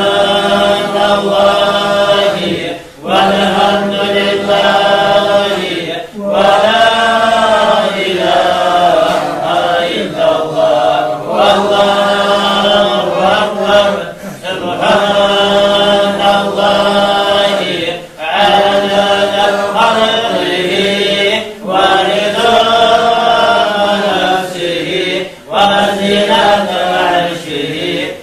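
Men's voices chanting an Arabic devotional dhikr together in long melodic phrases of about three to four seconds each, with a brief breath between phrases.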